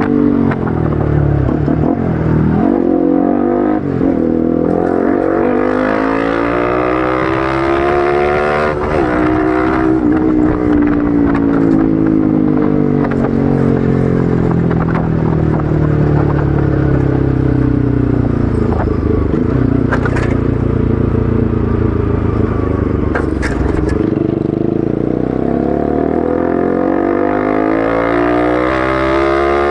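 Bajaj Pulsar RS200's single-cylinder engine through an Akrapovic aftermarket exhaust while riding. The engine note climbs with a couple of quick drops in pitch early on, like gear changes. It then rises, falls away around the middle and climbs again near the end as the rider accelerates and eases off.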